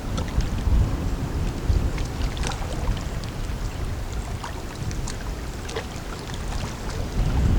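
Wind buffeting the microphone in an uneven low rumble, with scattered faint ticks over it.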